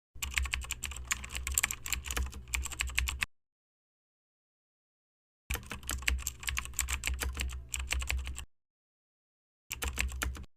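Rapid light clicking and clattering in three bursts: two of about three seconds each and a short one near the end that cuts off abruptly. A low hum runs under each burst, and there is dead silence between them.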